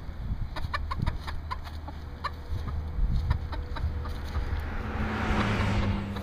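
Domestic chickens clucking, with a run of quick sharp clicks in the first two seconds or so. A rushing noise swells and fades near the end.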